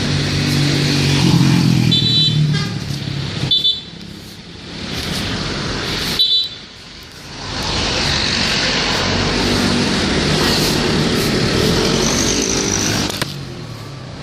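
Road traffic in a jam, engines running, with three short horn toots in the first half.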